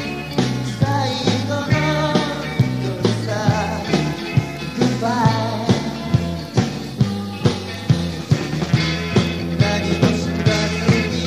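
A 1960s-style rock band recording playing with a steady drum beat under bass and guitar.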